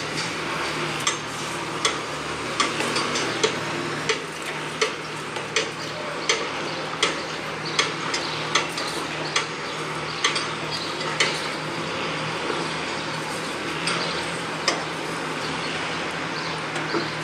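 Construction-site hammering: hammer blows striking at a steady pace of a little over one a second. The blows stop about two-thirds of the way through, and two more come near the end. Under them run a steady machine hum and general site noise.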